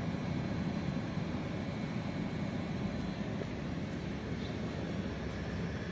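Fan of a Qubo fume extraction unit running, a steady even rush of air with a low hum.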